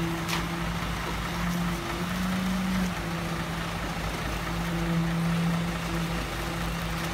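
Concrete mixer truck running steadily while it pours concrete from its chute, its engine and turning drum giving a constant low hum that shifts slightly in pitch a few times.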